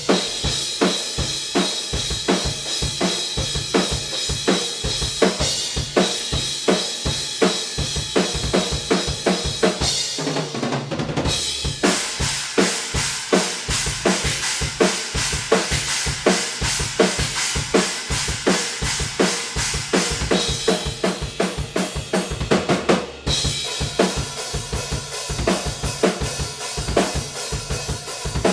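Acoustic drum kit played in a steady groove of kick drum, snare and cymbals, heard raw and roomy through a distant pair of room microphones with no processing. About ten seconds in the cymbals drop out briefly under a run of low drum hits.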